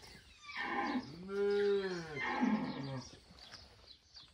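A cow mooing: one long moo of about two and a half seconds that rises and then falls in pitch.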